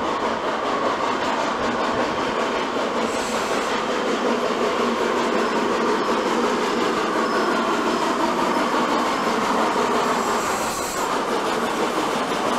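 Czechoslovak ČSD class 498.0 'Albatros' steam locomotive 498.022 running past at low speed: a steady rush of steam and rolling-wheel noise.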